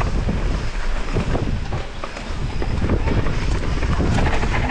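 Mountain bike riding down a dirt forest trail: tyres rolling over dirt and leaf litter, the bike knocking and rattling over bumps, with wind buffeting the microphone.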